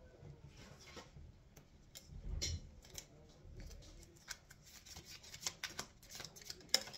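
A small deck of tea leaf oracle cards being shuffled by hand: quick irregular clicks and taps of card edges, busier in the second half, with a duller bump about two and a half seconds in and a sharper click near the end.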